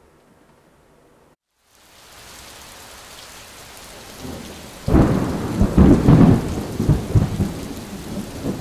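Steady rain hiss fading in after a brief cut to silence, with loud rolling thunder rumbling in about five seconds in.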